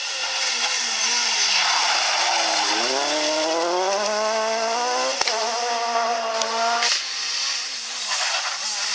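Renault Clio rally car engine: its note falls as it slows into a bend, then climbs as it accelerates hard away, with a sharp crack about five seconds in. The engine sound drops away suddenly about seven seconds in.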